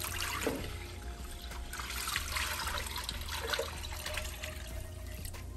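Water pouring in a continuous stream from a glass measuring cup into a slow cooker's crock, splashing into the liquid already in it.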